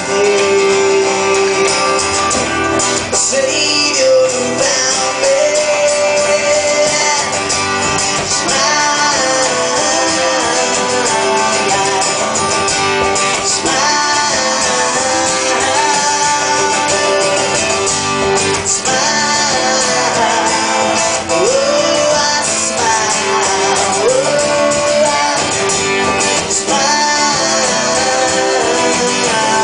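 Live country song on strummed acoustic guitar, in an instrumental stretch between verses, with a sliding melody line over the strumming.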